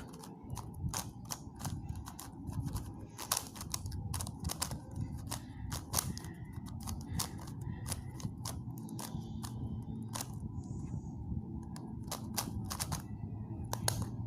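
Megaminx twisty puzzle turned by hand: a fast, irregular run of plastic clicks and clacks as its faces are snapped round. Its owner calls the turning sandy and sluggish.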